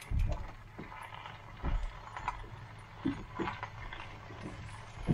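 A plastic bag of shredded cheese shaken over eggs in a carbon steel pan: light rustling with a few soft knocks and irregular low thumps.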